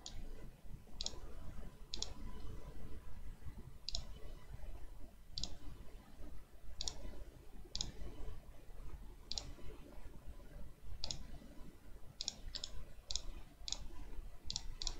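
Computer mouse button clicking at irregular intervals of about a second, coming quicker near the end, as points are placed while drawing lines in CAD software. A faint low room hum lies underneath.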